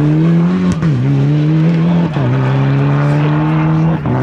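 Mitsubishi Lancer Evolution rally car's turbocharged four-cylinder engine under full acceleration as it drives away, changing up three times; the engine note drops at each shift and climbs between them.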